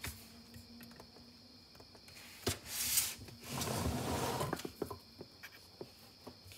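Handling noise as a laptop is shifted on a desk and a USB-C cable is brought to its port: a sharp click about two and a half seconds in, a short hissing rustle, then a longer scraping rustle lasting about a second, with a few light ticks.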